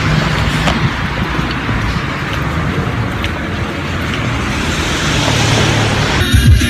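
Steady vehicle road noise, an even hiss over a low rumble. About six seconds in it cuts abruptly to music.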